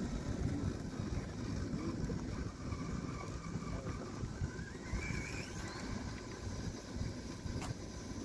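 Wind buffeting the microphone as a steady low rumble, with the faint whine of a small radio-controlled model's electric motor that rises in pitch about halfway through as it speeds up. A single sharp click near the end.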